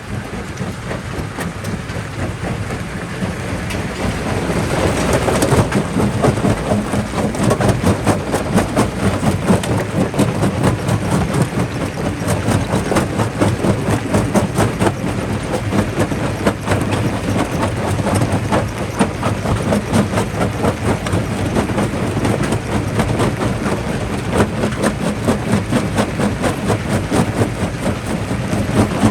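Jaw rock crusher running and crushing rock: a steady low machine drone with a dense, irregular clatter of rocks cracking and knocking, which grows louder about five seconds in as more rock enters.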